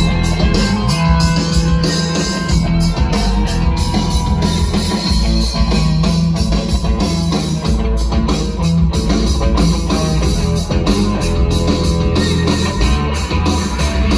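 Rock music with electric guitar and drums played loud on a truck's newly installed aftermarket stereo, a Sony head unit with a JL Audio 10-inch subwoofer, heard inside the cab. The bass is heavy and strong.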